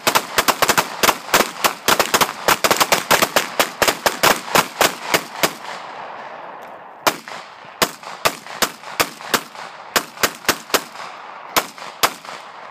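Semi-automatic pistols (a Glock, a Sig Sauer and a Springfield XD) fired rapidly by three shooters at once: dense overlapping shots for about the first five seconds, then after a short pause slower, scattered shots that stop shortly before the end.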